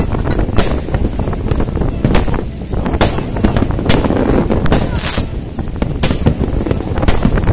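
Aerial fireworks bursting, sharp bangs about once a second, over a steady low rumble of strong wind on the microphone and crowd voices.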